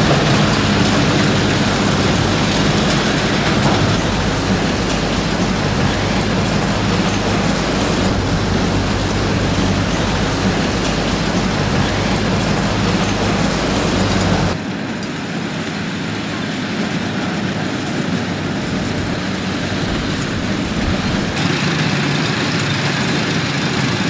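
Pull-type corn picker running steadily in a cornfield, a continuous mechanical drone with a low hum. About halfway through, the sound drops in level and loses its low end, then goes on steadily.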